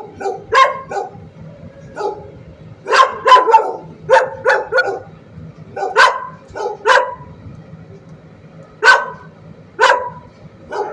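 Shelter dogs barking in the kennels, repeated sharp barks in irregular clusters of two to four.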